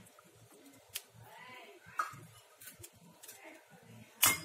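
Quiet kitchen handling with a few faint clicks and a faint call in the background about a second in, then a sharp metallic clatter of kitchen utensils near the end, the loudest sound.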